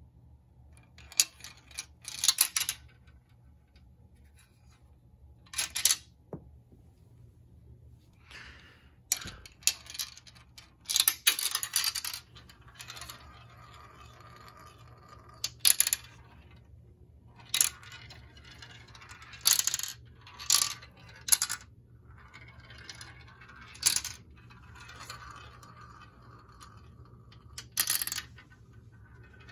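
A marble running down a plastic marble run: sharp clicks and clacks as it drops through the tubes and strikes the track pieces, with a few longer stretches of rolling noise as it circles in the funnel bowls.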